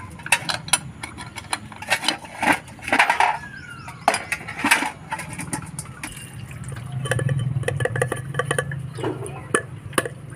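Metal clinks and knocks of a spanner working on a diesel filter head and its parts in a stainless steel basin, with a quick run of clicks about seven seconds in. A low steady engine hum runs underneath.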